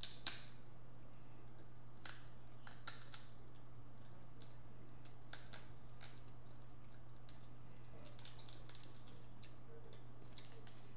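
King crab being eaten by hand close to the microphone: irregular small clicks and crackles of shell being picked apart, with mouth sounds, over a steady low hum. The sharpest click comes just after the start.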